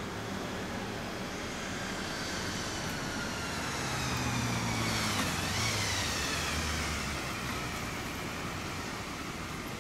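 A road vehicle passing by: its noise builds to a peak about five seconds in and then fades, the pitch dropping as it passes.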